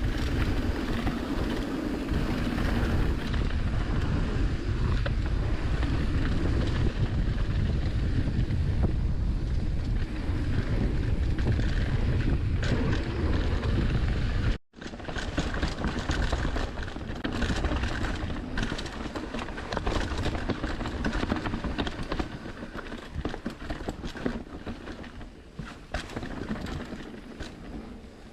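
Mountain bike riding a trail, with wind buffeting the microphone and the bike and tyres rattling and knocking over the rough ground. The sound cuts out for a moment about halfway through; after that the wind is lighter and the clicking and rattling are more distinct.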